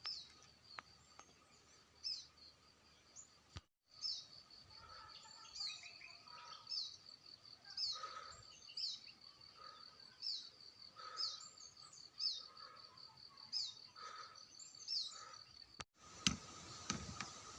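A songbird calling over and over, a short high note that drops in pitch about once a second, over a steady high-pitched hum. Near the end come two sharp cracks.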